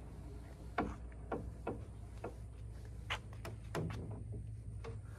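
Scattered light clicks and knocks, about ten, from a folding trimaran's aka beams pivoting as the plywood outrigger float swings in.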